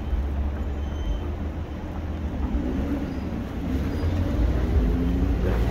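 Low rumble of city street traffic with a vehicle engine passing, growing somewhat louder in the second half.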